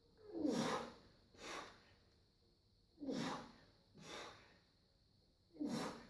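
A weightlifter's hard breathing through repeated push jerks with a barbell: three pairs of forceful breaths about two and a half seconds apart. The first of each pair is louder and carries a short grunt.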